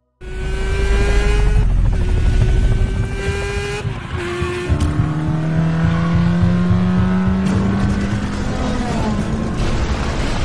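Car engine accelerating hard, its pitch climbing steadily and dropping back at each gear change, several times over, over a heavy low rumble. It starts abruptly.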